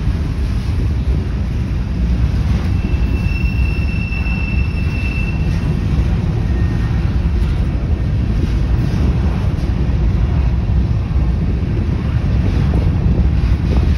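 CSX covered hopper cars rolling past, a steady low rumble of wheels on rail. A single high squeal rings out for about two seconds a few seconds in.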